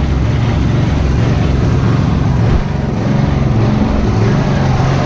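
Tractor engine running steadily and loud, a low engine drone with noise spread across the range.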